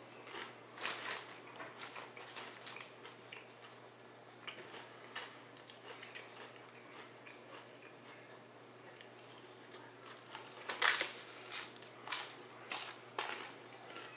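Tortilla chips crunching as a person bites and chews nachos, in irregular bursts with the loudest crunches about eleven seconds in.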